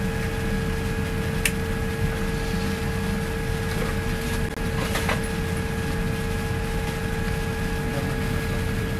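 Steady airliner cabin noise: a low rumble of engines and rushing air with a steady hum through it, and a couple of faint clicks.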